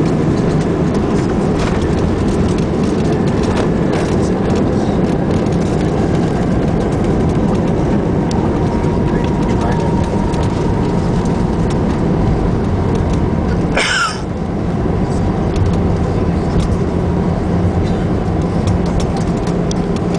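Inside the cabin of an airliner on its landing roll: a loud, steady rumble of jet engines and wheels on the runway. The rumble drops suddenly a little about two-thirds of the way through.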